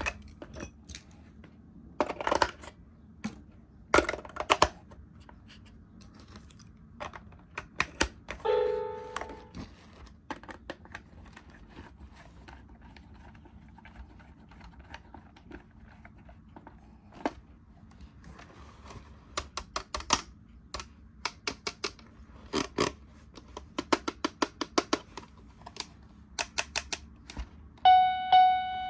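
Plastic toys and packaging being handled: scattered clicks, taps and rattles, with two short electronic toy tones, one about eight seconds in and a brighter one near the end.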